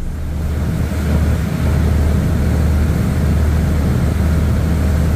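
Car ferry's engines droning steadily under way, a deep even hum with a rushing noise of wind and water over it.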